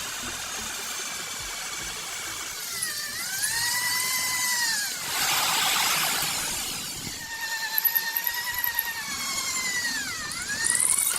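Electric power tool motor whining. Twice its pitch sags and recovers as it is loaded, and a loud rushing noise comes in around the middle.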